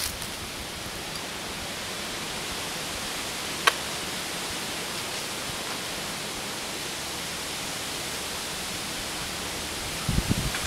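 Steady rushing hiss of river water flowing, with one sharp click about three and a half seconds in and a few low thumps near the end.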